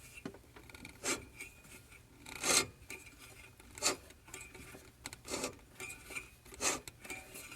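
An engine being turned slowly by hand counterclockwise, with a metallic scraping from inside it. The scraping comes in five strokes about every second and a half, the loudest about two and a half seconds in. It is an abnormal internal scrape that the owner is trying to track down.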